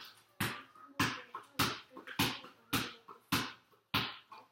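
Sharp slaps or smacks in a steady rhythm, a little under two a second, each dying away quickly.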